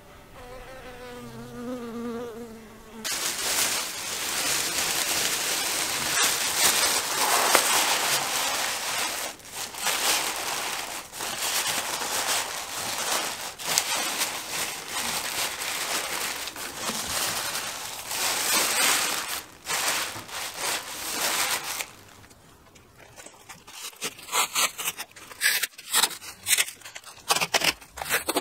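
A honeybee buzzing briefly, its hum wavering in pitch. It is followed by a plastic bag crinkling loudly as it is worked over a bucket, and near the end by masking tape ripping off its roll in short pulls.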